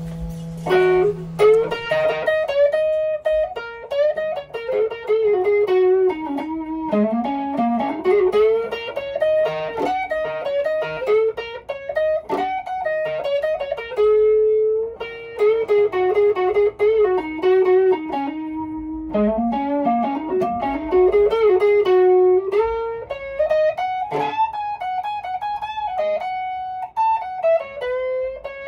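Gibson Les Paul electric guitar played as a single-note lead line, with notes sliding and bending in pitch and a few notes held longer.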